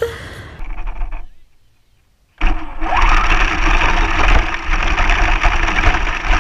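Onboard audio from a GoPro mounted on a battery-powered Traxxas RC car driving over grass: a loud, dense rattling and rushing noise with a low rumble, starting abruptly about two and a half seconds in after a brief near-silent gap.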